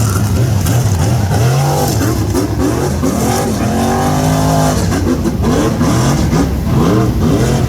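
Rock bouncer race buggy engine revving hard and repeatedly, its pitch climbing and dropping in quick surges over a steady low drone.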